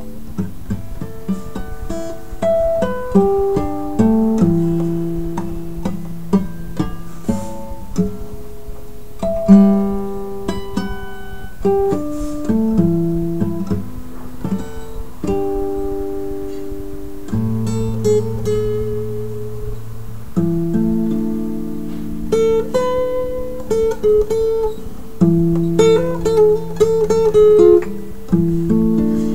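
Acoustic guitar played solo: a plucked melody of single notes over ringing bass notes, with passages of quick strummed chords partway through and near the end.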